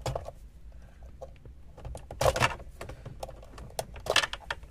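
Plastic wiring connectors being unclipped and pulled from the back of a car heater control panel: a run of light clicks and scratches, with two louder scraping bursts, one about two seconds in and one near the end.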